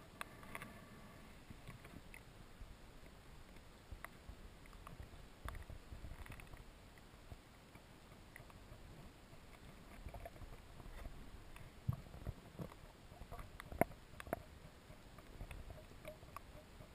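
Faint sound recorded underwater: a low, steady water rumble scattered with sharp clicks and pops, with a few louder clicks in the second half.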